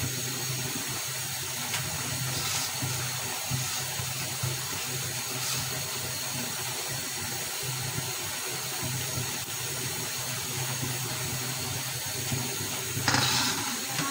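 Mixed vegetables cooking in a karai over a gas burner, a steady sizzling hiss with a few faint pops. There is a brief louder rush near the end.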